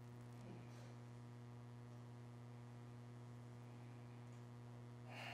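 Near silence with a steady low electrical hum, typical of mains hum in a sound system, and a brief faint hiss near the end.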